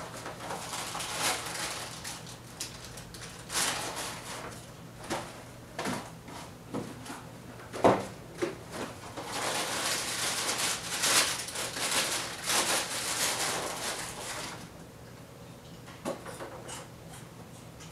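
Kitchen handling sounds: cabinet doors and items being taken out and put down on the counter, making scattered clicks and knocks, with one sharp knock about eight seconds in and several seconds of rustling in the middle. A faint steady hum runs underneath.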